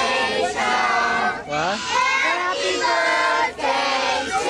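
A group of children shouting and cheering together in many overlapping high voices, with a brief dip about one and a half seconds in and again near the end.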